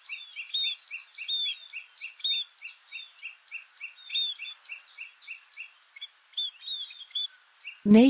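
Scaly-breasted munias calling: a fast run of short, high chirps, about five a second, with higher arched notes mixed in now and then. The calls stop shortly before the end.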